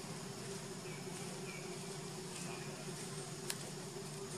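Steady buzzing hum of flying insects in the tree canopy, with three faint short chirps in the first half and a single sharp click about three and a half seconds in.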